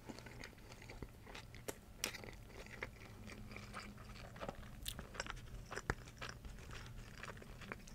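Close-miked chewing of a mouthful of Italian sub sandwich, with soft crunches and scattered small wet mouth clicks.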